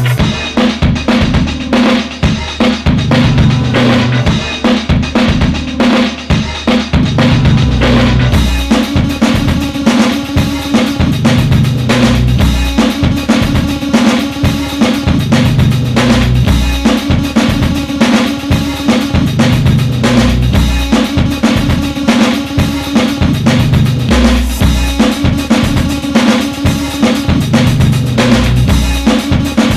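Rock music: a drum kit keeping a steady, driving beat over a bass line that repeats about every two seconds.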